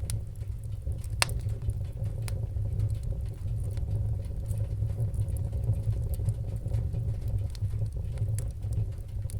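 Fire crackling: a steady low rumble of flames with scattered sharp pops and snaps, the loudest about a second in.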